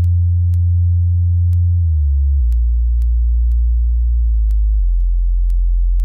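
Subwoofer sound-check tones: deep, steady sub-bass notes that step in pitch, going up at the start, back down about two seconds in, and shifting again near five seconds, with a light tick about twice a second.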